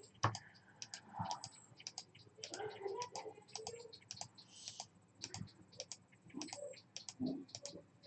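Computer keyboard clicking: a faint, irregular run of quick key taps, several a second.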